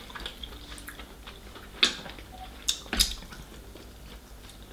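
Eating king crab legs close to the microphone: soft chewing and wet squishing. There is one sharp crack of shell a little under two seconds in, and two more close together about three seconds in.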